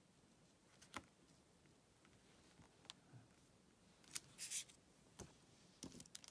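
Near silence with a few faint clicks and two brief crisp rustles about four seconds in, from paper and small craft supplies being handled on a work surface.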